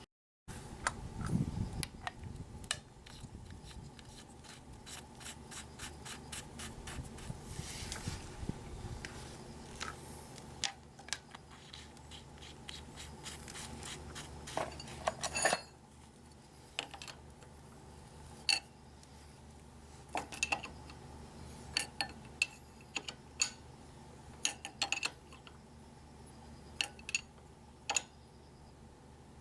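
Metal hand tools clinking, rubbing and scraping on a Honda Super Cub 50 engine during tappet adjustment, in many sharp clicks. The clicks come thick and fast through the first half, then thin out to scattered single clinks.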